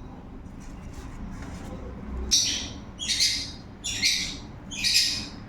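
A bird calling four times in short, high-pitched chirps about a second apart, starting about two seconds in.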